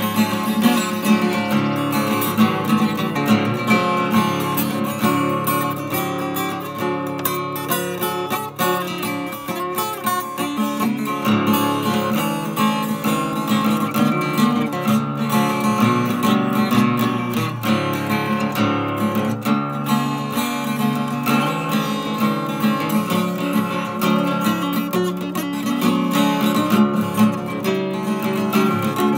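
Acoustic guitar tuned to drop D, played solo: a continuous run of plucked notes and chords.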